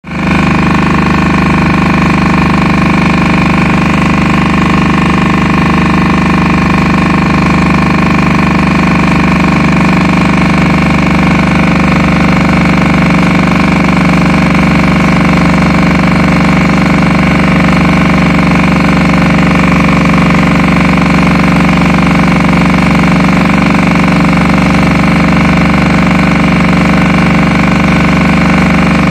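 Two-stroke diesel engine of a 1965 Agrostroj Prostějov T4-K10-A articulated small tractor running steadily as the tractor drives along, heard loud and close from the driver's seat. Its speed holds even throughout, with no revving.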